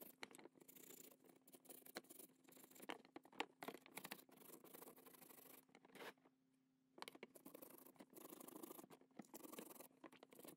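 Small wire brush scrubbing layers of old paint off a die-cast metal toy truck part: quick, irregular scratching strokes, with a pause of about a second just past the middle.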